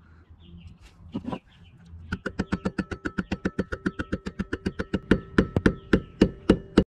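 Rapid clicking from a tool working a screw extractor (easy out) in a broken-off screw, about six clicks a second, slowing to about three a second and getting louder near the end, then cutting off suddenly.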